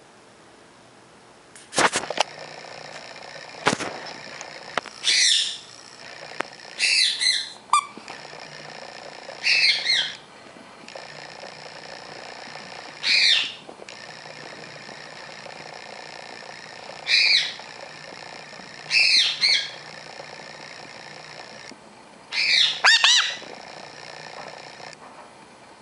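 Sun conure giving a series of short, harsh squawks, each falling in pitch, every two to four seconds while it wrestles a stuffed toy. Two sharp knocks sound about two and four seconds in.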